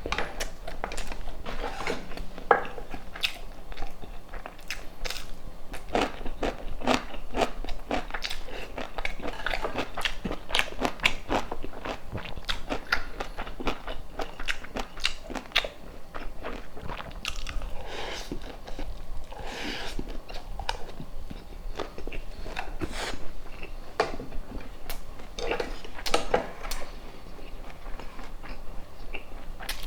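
Close-miked eating: a person biting and chewing food with a steady run of small wet, crunchy clicks.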